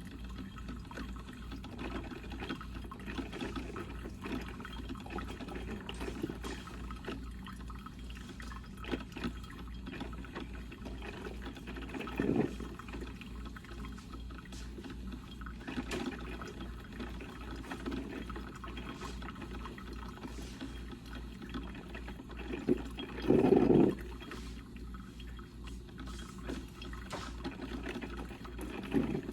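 Coffee percolator perking: steady bubbling and gurgling of water, with short louder spurts of gurgling about 12 and 16 seconds in, the loudest about three-quarters through, and another near the end.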